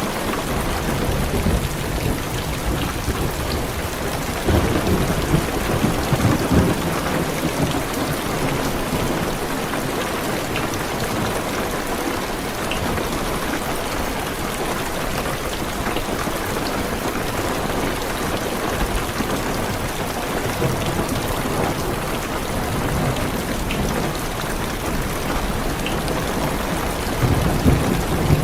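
Heavy rain falling steadily on a car's roof and windows, heard from inside the car, with thunder rolling about four seconds in and again near the end.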